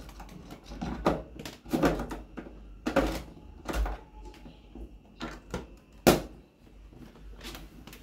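Plastic clicks and knocks from a front-loading washing machine's drain pump filter being screwed back into its housing, with one sharp snap about six seconds in.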